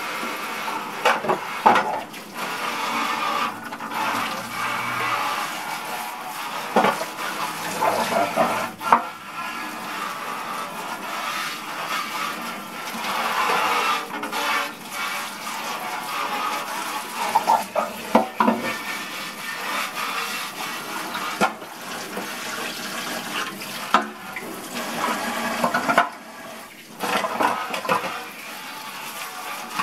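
Water running steadily from a tap into a sink, with occasional knocks and clinks of items being handled in it.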